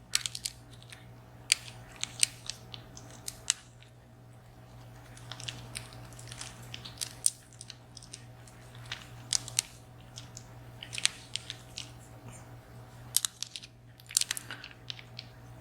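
Sharp metal clicks and scrapes in short irregular clusters, from small tools working at the crimped housing and pin parts of a VSR dimple lock being taken apart. A faint low steady hum runs underneath.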